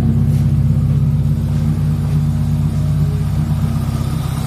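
Hyundai Verna's SOHC 12-valve four-cylinder engine idling steadily and evenly while still cold. The smooth idle shows the misfire is gone now that the leaking ignition coil has been repaired.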